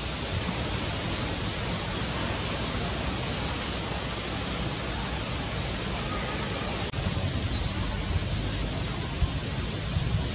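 Steady, even rushing hiss of outdoor background noise, with no distinct animal calls.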